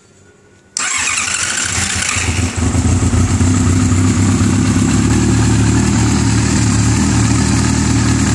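Yamaha R6 inline-four engine cranked on its electric starter about a second in, catching after a couple of seconds and settling into a steady idle. The timing chain is slack because the worn screw-type cam chain tensioner's spring cannot hold it, which gives a loud camchain noise.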